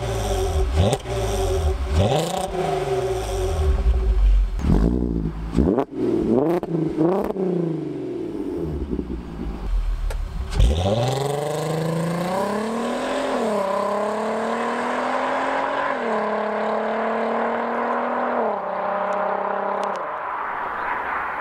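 VW Golf Mk5 R32's 3.2-litre VR6 through its stock exhaust. It idles, then revs up and down in place, then pulls away hard with the pitch climbing. The pitch drops sharply at each of four quick DSG upshifts as the car fades into the distance.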